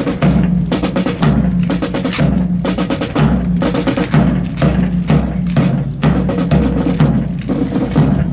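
Military band percussion playing a drum cadence: bass drum and snare keep a steady, repeating beat, with sharp clicks on top.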